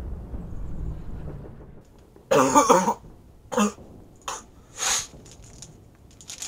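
A man coughing: one longer cough about two seconds in, followed by three shorter coughs.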